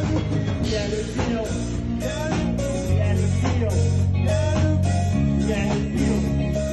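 Live rock band playing in a rehearsal room: electric guitar and bass over a steady beat, with a man singing into a microphone.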